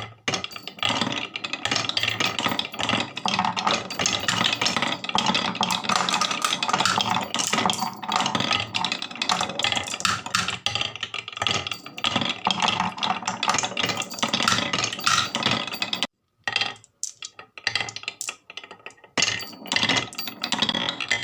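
Marbles clattering down a HABA marble run: a dense, continuous rattle of small clicks that breaks off for a moment about sixteen seconds in, then comes back as sparser clicks.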